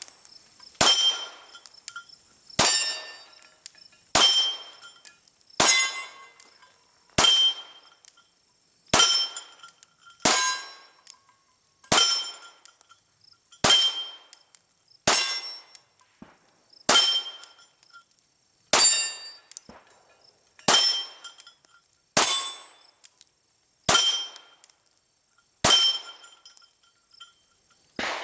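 Glock 19 9mm pistol fired in slow, steady single shots, about one every second and a half to two seconds. Each shot is followed by a metallic clang and ringing, as from rounds striking a steel target.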